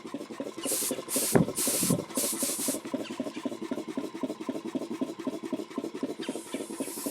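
Belt-driven piston air compressor running, its pump chugging in a fast, even rhythm over a steady hum. Hissing bursts of air come in the first few seconds and again near the end, with one sharp knock about a second and a half in.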